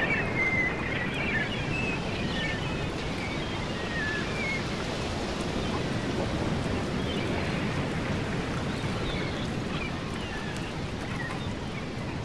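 Steady surf and wind noise of an ocean ambience recording, with a few short high chirps in the first few seconds.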